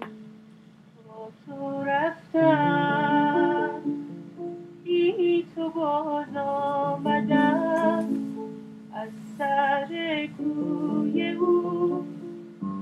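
A woman singing a slow melody in phrases with long held notes, over a soft, steady accompaniment.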